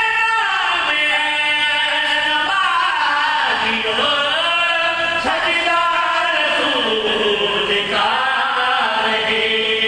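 A zakir's sung recitation: a man's voice chanting a long melodic line of held notes that slide between pitches, in two long phrases.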